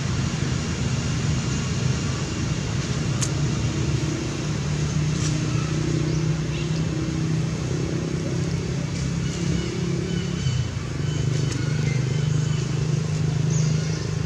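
A motor engine running steadily with a low hum, dipping briefly about ten seconds in, with a few faint clicks over it.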